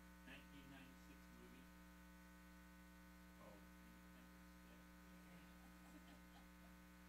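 Near silence, filled by a steady electrical mains hum from the sound system, with faint snatches of a man's voice now and then, apparently speaking off-microphone.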